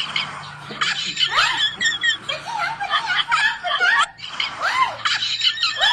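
Several voices laughing and squealing together, the pitch sliding up and down, in stretches that break off and start again.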